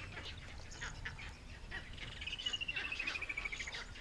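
Spurfowl alarm calls: harsh, repeated cackling notes that signal a predator nearby. About halfway through, another bird adds a rapid trill of notes that falls steadily in pitch.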